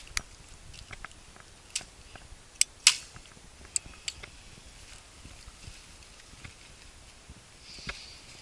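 Sharp clicks and knocks from a rifle being handled, about half a dozen in the first four seconds, the loudest about three seconds in.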